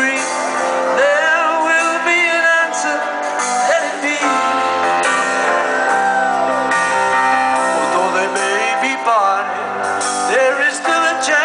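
Live rock concert music heard from the crowd through a nearby outdoor PA speaker stack: a male lead singer singing with his band.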